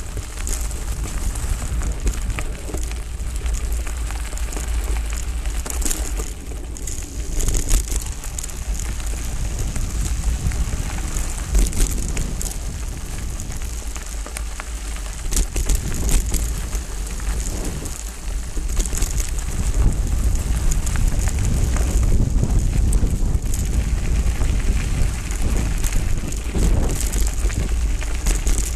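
Hardtail mountain bike riding over gravel singletrack: tyres crunching on loose grit and stones, the bike rattling with many small clicks, under a steady low rumble of wind on the camera's microphone.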